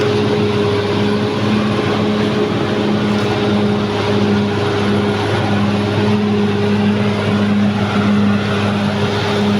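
Caterpillar D6R XL bulldozer's diesel engine running steadily with an even hum.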